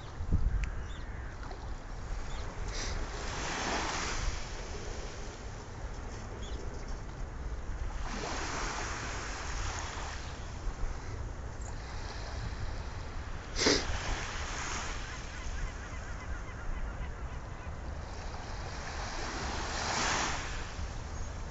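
Small waves breaking and washing up a sandy shore, a swell of surf every five or six seconds, over a steady low rumble of wind on the microphone. Two brief sharp thumps, one just after the start and one about two-thirds of the way through.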